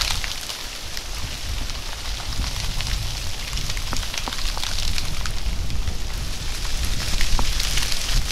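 Freezing rain falling on ice-glazed branches and crusted snow: a steady hiss dotted with many small icy ticks. A low wind rumble on the microphone grows near the end.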